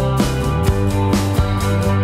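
Upbeat background music with a steady beat, about two beats a second.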